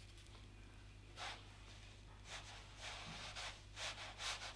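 Faint strokes of a paintbrush working acrylic paint on paper: a few short soft brushing sounds, the first about a second in and more frequent in the second half, over a low steady hum.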